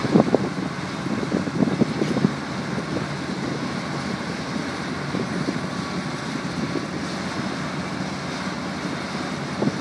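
Tractor engine running steadily as it tows a loaded bale trailer, under wind noise on the microphone. Gusts buffet the microphone in the first two seconds or so.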